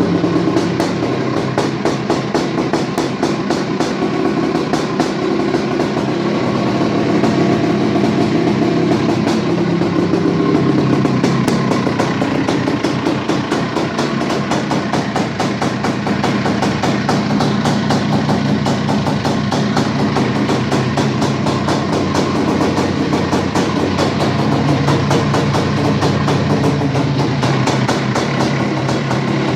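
Single-cylinder two-stroke engine of a rebuilt Husqvarna 430 dirt bike running steadily with rapid even firing, its pitch shifting a few times as the revs change.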